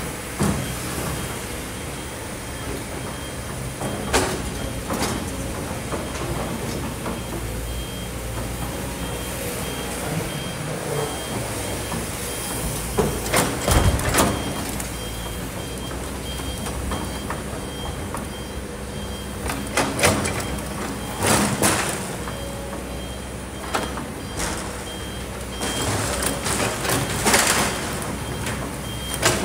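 Kobelco hydraulic excavator's diesel engine running under load as it digs. Several loud crunches of rock and sand come as the bucket scoops and drops its load, over a steady high beep-beep of a reversing alarm.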